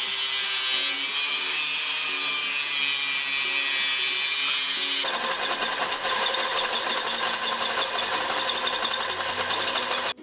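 Power tool running under load: a loud, steady, high-pitched hiss with a motor tone that wavers. About five seconds in it changes abruptly to a somewhat quieter stretch of tool noise, which cuts off sharply at the end.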